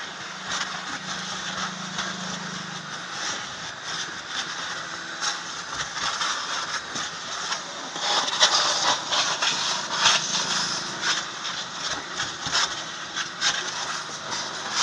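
Car seats being cleaned: irregular scraping and crackling with a steady hiss, getting louder and busier about halfway through.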